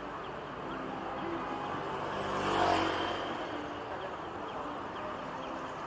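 A car passing close by on a busy city street, growing louder to a peak about two and a half seconds in and then fading, over the steady hum of traffic.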